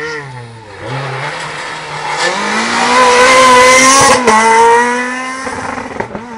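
Rally car accelerating hard as it approaches and passes, its engine note climbing in pitch and loudness to a peak about three to four seconds in. A brief cut just after that, typical of an upshift, is followed by a steadier note that fades as the car pulls away.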